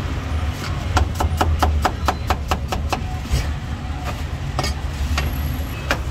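Cleaver chopping a cucumber on a thick wooden chopping block: a quick run of about a dozen sharp knocks in two seconds, starting about a second in, then a few single knocks. A steady low traffic rumble lies underneath.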